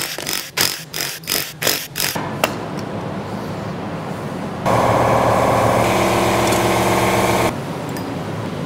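A cordless driver runs in a quick series of short bursts, about three a second, as it backs out the bolts on a Honda D16 cylinder head. After that comes a steady mechanical hum, louder for a few seconds in the middle.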